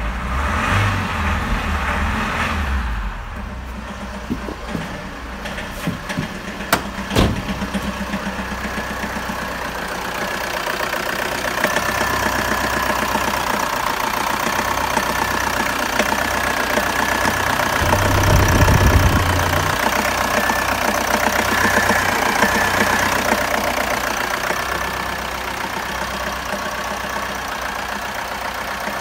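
Renault Master's 2.2 four-cylinder diesel (G9T722) idling with an even diesel clatter. A few sharp clicks come in the first seven seconds, and there is a brief louder swell a little past the middle.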